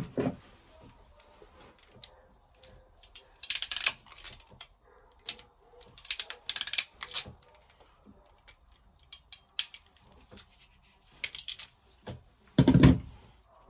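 Hand crimping tool clicking in clusters as yellow insulated terminals are crimped onto heavy red cable, with handling rustles between, and a loud dull thump near the end.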